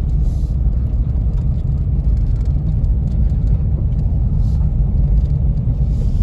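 Cammed, supercharged 6.2-litre V8 of a ZL1 Camaro running at low speed as the car rolls in, a steady deep rumble with no change in pitch.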